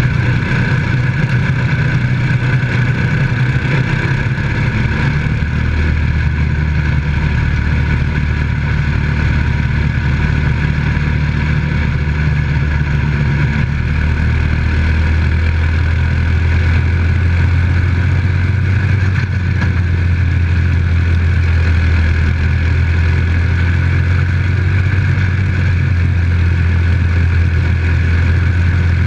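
Micro stock dirt-track race car's engine running steadily under way, heard from inside the open cockpit over wind and track noise. Its pitch settles a little lower about halfway through.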